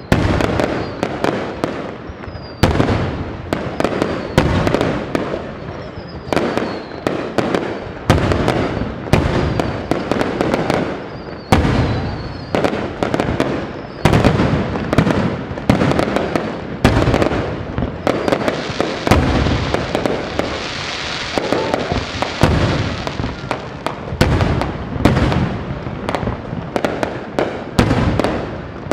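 Aerial fireworks display: shells bursting in a rapid, irregular run of bangs with continuous crackling between them. Several short falling whistles come in the first half, and a dense crackling hiss swells around the middle.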